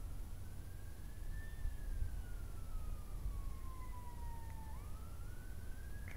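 An emergency vehicle siren wailing faintly, its pitch rising and then slowly falling, then rising again about five seconds in. A steady low rumble runs underneath.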